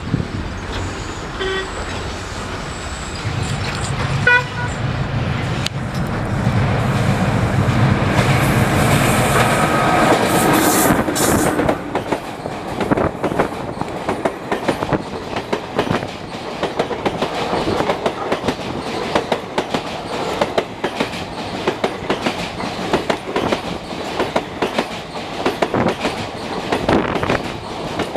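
Passenger express hauled by a WAP-4 electric locomotive approaches and passes close by, loudest from about eight to twelve seconds in. The coaches then roll past with a steady, rapid clickety-clack of wheels over the rail joints.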